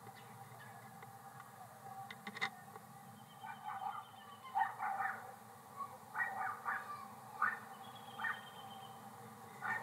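Short, rough bird calls in irregular clusters, beginning about three and a half seconds in, over a faint steady tone.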